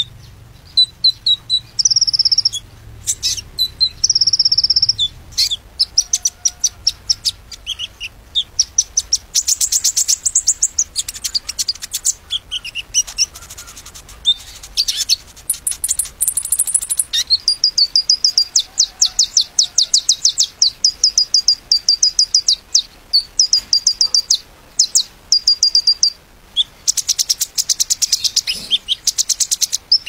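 A male sunbird singing: long runs of rapid, high-pitched ticking trills and chirps, with short pauses between phrases.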